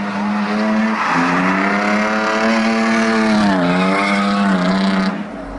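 Mercedes-Benz 190E (W201) drifting: the engine revs up and is held high, its pitch dipping briefly twice, with tyre squeal over it. The sound cuts off shortly before the end.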